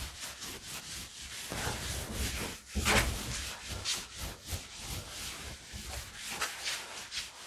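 A handheld duster wiping a chalkboard clean in repeated quick back-and-forth strokes, two or three a second, with one louder stroke about three seconds in.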